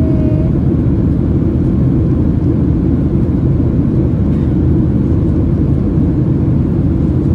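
Steady low rumble of jet airliner cabin noise in flight, heard from inside the cabin of a Skymark Boeing 737-800: engine noise and rushing airflow, even and unchanging.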